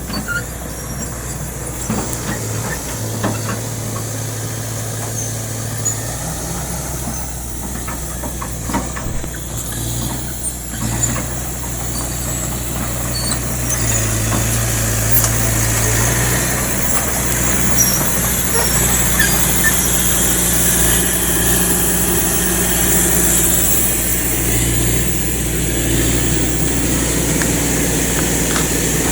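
Kobelco excavator's diesel engine running as it works, its hum swelling and easing every few seconds as the load changes, with scattered short knocks and clicks. It grows louder in the second half.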